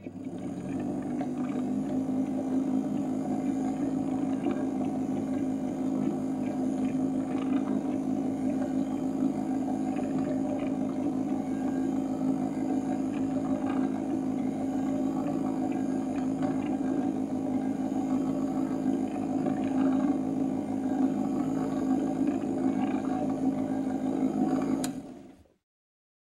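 Gramophone motor running: a steady, even hum with faint irregular ticks, which stops quickly near the end just after a sharp click.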